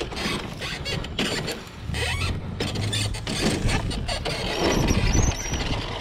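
RXF 150 pit bike engine running unevenly, with clattering knocks and a thin high squeal that rises about four and a half seconds in.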